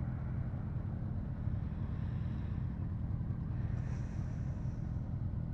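Honda Deauville motorcycle's twin-cylinder engine running steadily under way through a bend, heard from the rider's seat, with steady road and wind noise.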